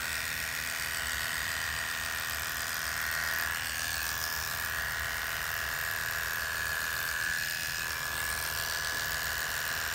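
Electric hair clippers running with a steady high buzz, its pitch wavering slightly, as they shave a scalp's donor area close.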